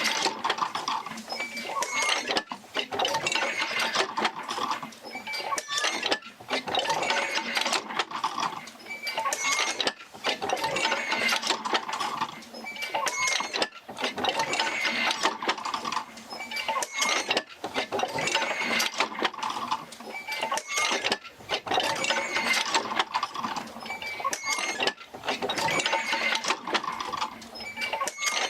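A wooden oil-field field wheel rocking back and forth on its pivot, with the jerker lines attached, creaking, squeaking and knocking in a slow, even rhythm of about two seconds a swing.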